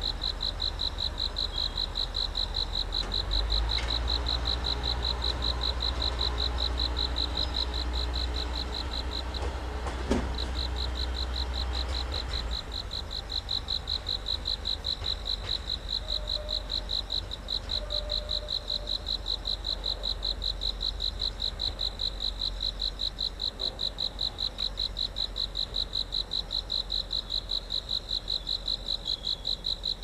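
Crickets chirping steadily in a fast pulsing trill, about three pulses a second, over the low diesel engine rumble of a multiple tie tamper moving along the track. The engine rumble swells about three seconds in and drops away about twelve seconds in, with a single sharp knock a little before it fades.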